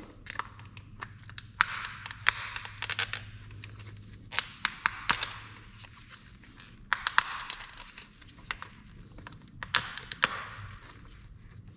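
Scattered sharp plastic clicks and taps as hands work a truck's in-tank fuel pump module, unclipping the strainer sock from the bottom of the pump, over a faint steady low hum.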